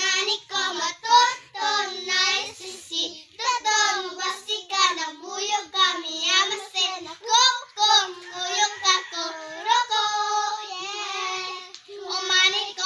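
Children singing a song in high voices, with no instruments.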